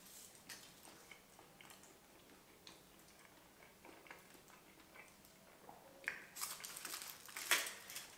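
Close-up chewing of a bite of shawarma, with soft wet mouth clicks. About six seconds in, the aluminium foil wrapper crinkles louder as it is handled and peeled back.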